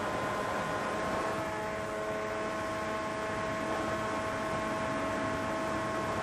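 FPV quadcopter's electric motors and propellers running steadily, a whine over a hiss that rises slightly in pitch about a second in.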